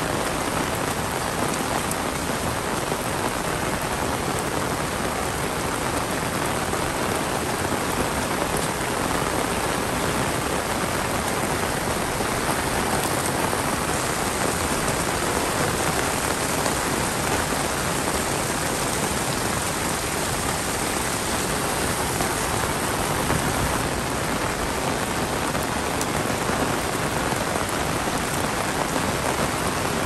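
Heavy rain falling steadily, a dense, even hiss of countless drops with no let-up.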